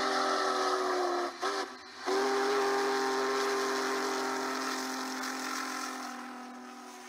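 Union Pacific Big Boy No. 4014's steam whistle sounding a chord of several tones. The blast cuts off just over a second in and gives a short toot. After a brief gap a long blast follows and slowly fades away.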